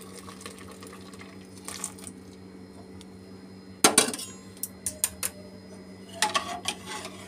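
Steel ladle knocking against a steel pot while stirring milk: one sharp clank about four seconds in, then a few lighter clinks and a cluster of knocks near the end, over a steady low hum.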